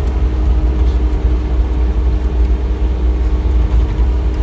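Bobcat E35 R-series mini excavator's diesel engine running steadily, a constant low rumble with a steady hum over it.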